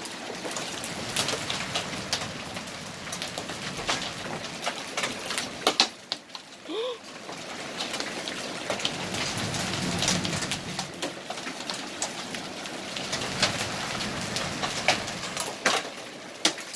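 Quarter-sized hailstones coming down with rain: a steady hiss broken by many sharp cracks and knocks as single stones strike the ground and hard surfaces.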